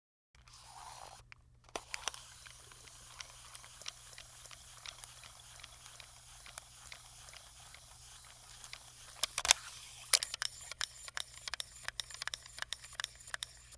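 Camcorder tape mechanism fast-forwarding: a steady low hum and hiss with scattered clicks, which come thicker and louder from about nine seconds in.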